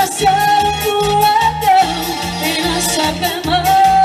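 Live popular dance music: a steady pulsing beat in the bass with a held melody line over it.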